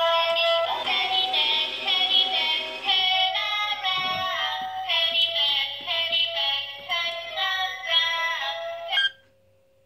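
Toy electronic ATM savings safe (Hello Kitty ATM003 deposit box) playing its built-in electronic tune through its small speaker, the music it plays when a banknote has been drawn in. The tune cuts off suddenly about nine seconds in.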